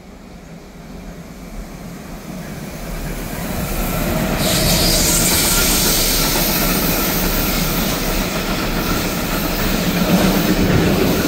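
Freight train passing through a station. It grows louder over the first four seconds as it approaches, then runs loud and steady as the wagons roll past.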